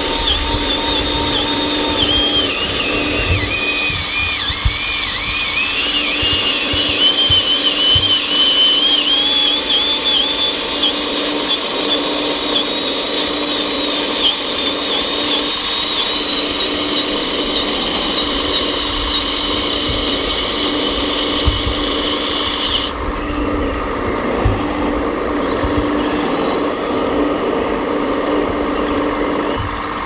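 Hydraulic pump of an RC model tipper semi-trailer whining as it raises the loaded dump body, its pitch wavering up and down, over a steady hum.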